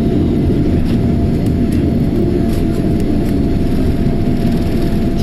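Jet airliner engines and airflow heard from inside the cabin during takeoff: a loud, steady low rumble with a faint steady whine above it.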